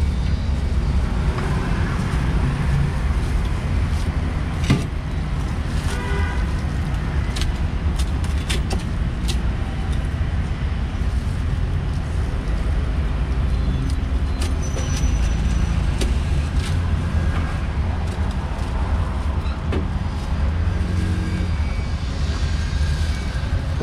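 Steady rumble of passing road traffic and motorbikes, with scattered sharp knocks of a cleaver chopping roast pork belly on a wooden chopping block.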